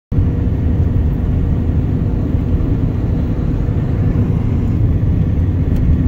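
Steady interior road noise of a vehicle driving on a snow-covered highway: a constant low rumble of engine and tyres with a faint steady hum, heard from inside the cab.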